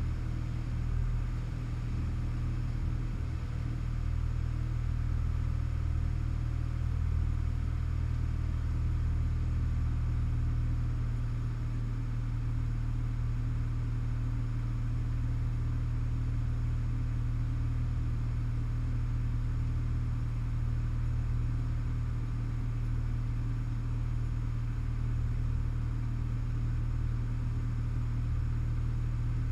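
Light aircraft's piston engine and propeller droning steadily at cruise power, heard inside the cabin in flight, with a deep, unchanging hum.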